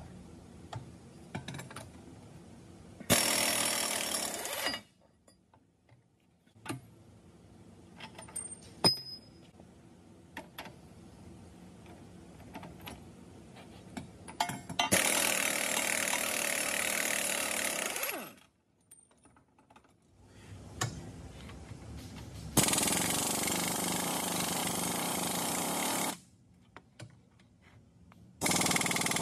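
Pneumatic impact wrench hammering on a large suspension bolt in four bursts of a few seconds each, with clinks of tools between bursts.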